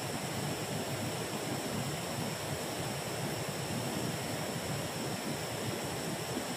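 Steady rush of a flowing river, an even noise with no breaks, with two faint steady high-pitched tones above it.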